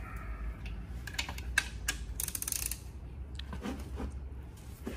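3/8-inch-drive ratchet clicking in quick runs, with metal-on-metal ticks, as the connecting-rod cap bolts are loosened on a Nissan SR20DET engine block.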